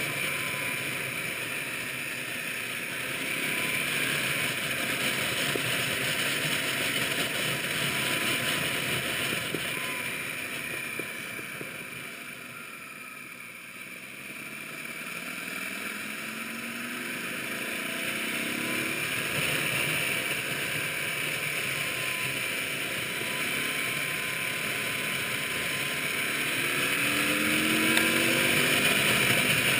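Motorcycle riding along a winding road, heard from a camera mounted on the bike: rushing wind and the engine. The sound dips about halfway through as the bike slows for a bend, then the engine note climbs as it accelerates out, and climbs again near the end.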